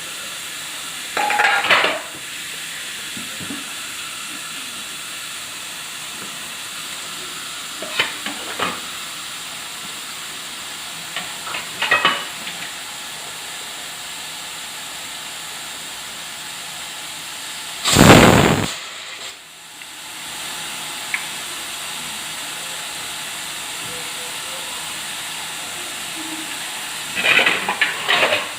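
Pressure cooker on the boil, hissing steadily, with a few short puffs of steam from the weight. About two-thirds through, the whistle lets out one loud blast of steam lasting under a second. The hiss drops for a moment afterwards, then builds again.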